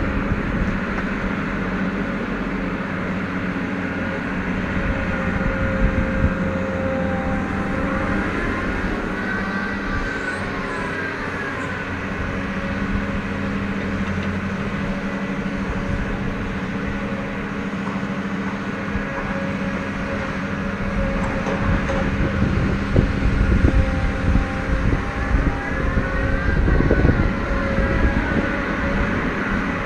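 Atlas 1804 MI material handler working timber: its diesel engine runs steadily while the hydraulic whine rises and falls twice as the machine works. A run of knocks and clunks comes near the end.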